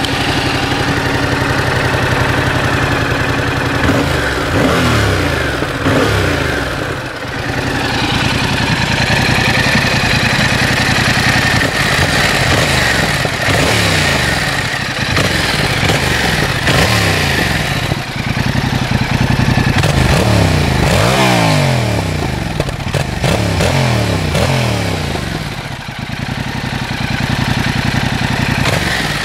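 Yamaha MT-07's 689 cc parallel-twin engine with its stock exhaust, running at idle and revved several times. The revs rise and fall back to idle with each blip of the throttle.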